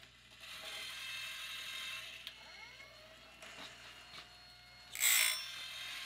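Woodland Mills RS30 Pro sawmill blade sharpener running with its grinding wheel on, over the clicking of its tooth-advancing ratchet. The wheel grinds against the band-saw blade's teeth in patches: one longer stretch about half a second in, and a short, loud grind near the end.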